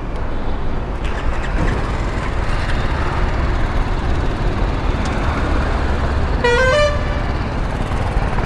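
Steady low rumble of motorcycle engines and road traffic, with one short vehicle horn toot, about half a second long, roughly two-thirds of the way through.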